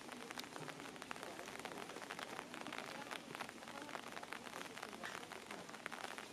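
A murmur of distant voices under a dense crackling noise.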